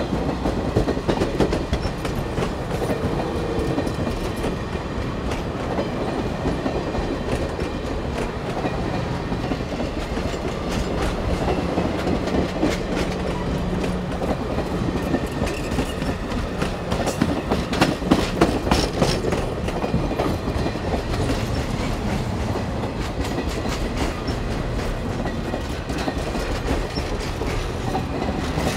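Passenger train cars rolling past close by: a steady rumble of steel wheels on rail with a clickety-clack of wheels over the rail joints, louder a little past the middle.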